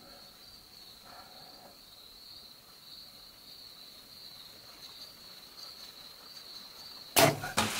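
A steady high insect drone, crickets, over otherwise quiet woods. About seven seconds in, a sudden loud sharp snap and clatter as the compound bow is shot at the bear.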